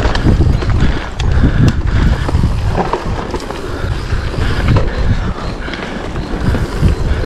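Mountain bike rolling fast down a dirt forest trail, recorded from a camera on the bike or rider: a loud rumble of knobby tyres and wind buffeting the microphone, with knocks and rattles from the bike over bumps.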